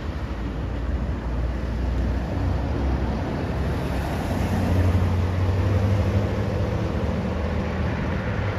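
Road traffic passing close by: engines and tyres, with a low engine rumble that swells from about three and a half seconds in and eases off near the end.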